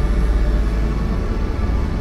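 Electronic soundtrack to the projection: a dense, steady low drone with many faint held tones above it.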